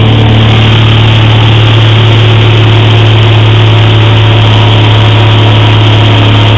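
Single-engine light aircraft's engine and propeller droning steadily in flight, heard loud inside the cabin, with a strong low hum.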